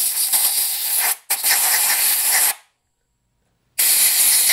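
Compressed air hissing hard from an air-hose nozzle, blowing dust out of a small electric motor's housing and windings. The blast breaks off for a moment just over a second in, stops at about two and a half seconds, and starts again near four seconds.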